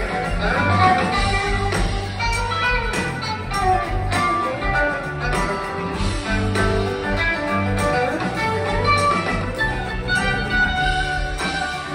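Live rock band playing an instrumental passage: electric guitars over bass and a drum kit, with a steady beat throughout.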